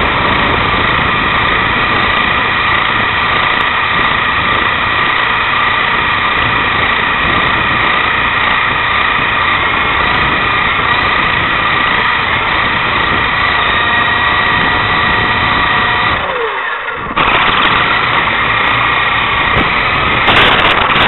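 Bullbat Sky Spy RC helicopter's electric motors and rotors running, recorded up close by its own onboard camera, a steady high whine. About three-quarters of the way through it thins for roughly a second, then comes back slightly louder.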